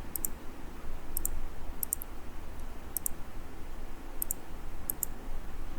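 Computer mouse clicking: about seven short clicks at irregular intervals, most heard as a quick double tick, over a faint steady low hum.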